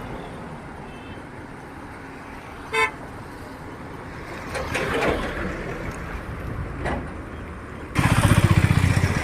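Road traffic: a brief horn toot about three seconds in, then a loud motor vehicle engine close by near the end.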